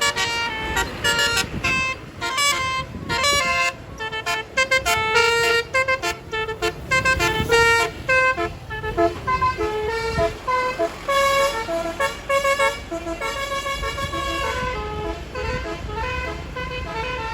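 Bus 'telolet basuri' multi-trumpet musical air horn playing a fast tune of short honked notes, with a vehicle engine rumbling underneath.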